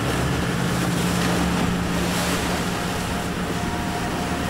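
Motorboat running at speed across open sea: a steady engine drone under the rush and splash of water along the hull, with wind buffeting the microphone.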